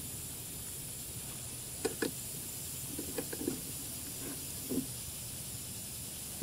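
A few soft taps and small clicks of homemade lubricated wads being set over the chambers of a black powder revolver cylinder, against a steady faint high hiss.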